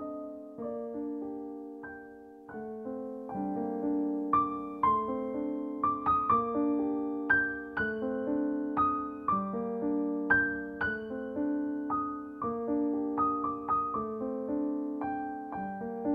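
Background piano music: a gentle melody of single struck notes over held chords.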